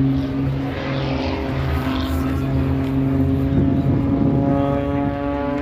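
Propeller aircraft engine running with a steady drone, turning rougher for a moment about three and a half seconds in.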